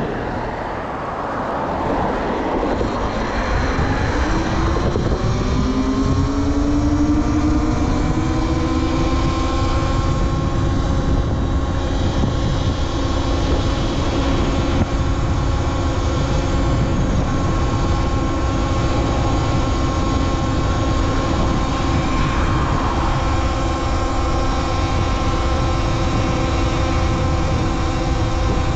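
Talaria Sting R MX4 electric dirt bike's motor whining under way. The whine rises in pitch for a few seconds as the bike speeds up, then holds steady at one pitch over a constant low rush.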